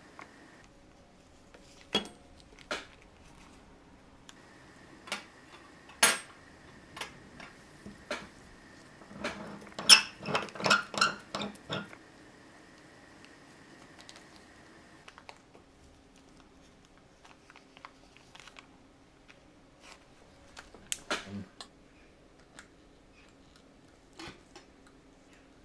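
Small scattered clicks and metal clinks as a fluted 18K gold bezel is worked off a watch case in a bench bezel-removal tool, with a quick run of sharper clinks about ten seconds in as the bezel comes free.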